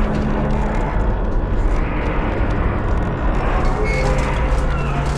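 Tower crane at work, its steel mast and jib creaking and grinding, over a steady mechanical hum. Short high metallic squeaks come about four seconds in.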